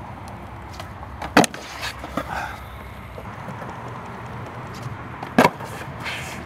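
Skateboard wheels rolling on concrete with a steady low rumble, broken by two loud, sharp clacks of the board, about a second in and near the end, and a few lighter knocks in between, from a skater trying fakie 360 flips.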